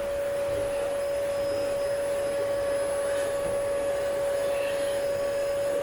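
Vacuum cleaner running steadily with a constant high hum, vacuuming dog hair off an upholstered sofa.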